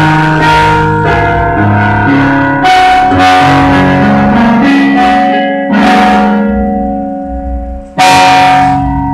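Electronic keyboard played with both hands, a melody over chords using only the black keys, which gives a pentatonic sound. A loud chord struck about a second before the end rings out and fades.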